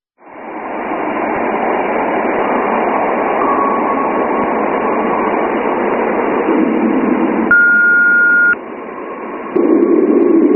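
Radio static: a steady, thin hiss that sounds like it is coming through a radio, presented as a sound recorded from space. About three-quarters of the way through, a steady beep holds for about a second, and near the end a louder, lower rush of static comes in.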